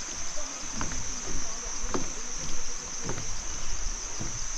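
Insects droning steadily at a high pitch, unbroken.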